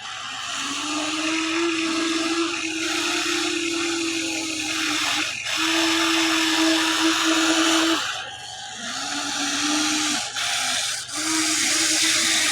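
Huina 1594 RC excavator's small electric motors whining as it moves. There are four runs of a few seconds each with short breaks between them, and each run holds one steady pitch.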